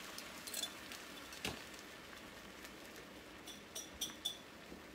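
Beaten eggs sizzling faintly in a large pan on a gas stove, with a light knock about a second and a half in and a few small clicks near the end.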